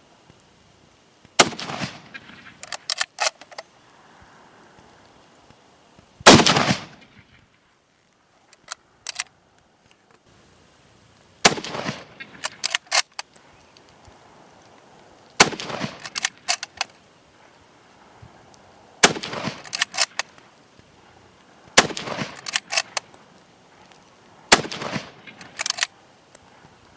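Lee-Enfield No. 4 Mk1 bolt-action rifle firing .303 rounds: seven shots, each followed by a quick run of metallic clicks as the bolt is worked to eject the case and chamber the next round. The shots come a few seconds apart at first and faster toward the end.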